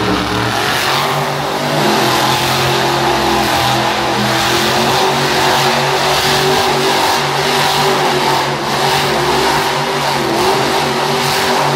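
Monster truck engine running hard and revving loudly as the truck drives and pulls its front wheels up into a wheelie.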